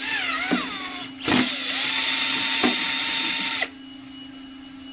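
Ryobi cordless drill drilling a pilot hole through a motorcycle's painted side panel. A short falling whine in the first second, then the drill runs steadily under load for about two and a half seconds and stops suddenly.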